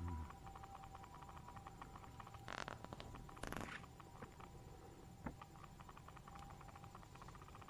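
Faint handling noise: quick light clicks throughout, with two short rustles about two and a half and three and a half seconds in, from a paper instruction sheet being held and moved. A faint steady hum runs underneath.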